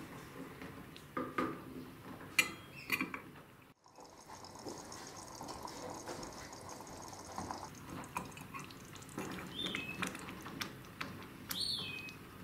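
Thick minced-meat tomato sauce simmering and bubbling in a stainless steel pot while a wooden spoon stirs it, with scattered sharp clicks and knocks of the spoon against the pot and a short high squeak near the end.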